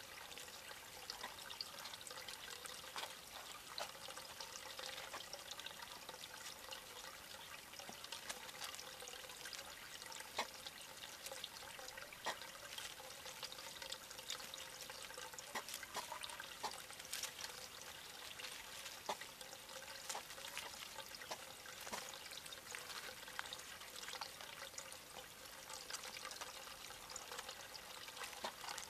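Faint, steady trickle of running water, with scattered small clicks throughout.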